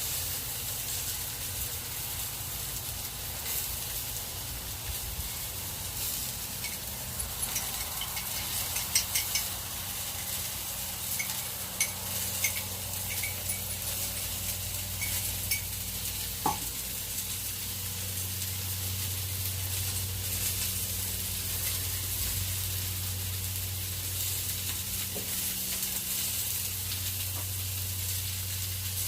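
Cornstarch-coated chicken pieces sizzling as they fry in oil in a pan, with scattered clicks of a utensil against the pan as they are stirred. A low hum comes and goes through the second half.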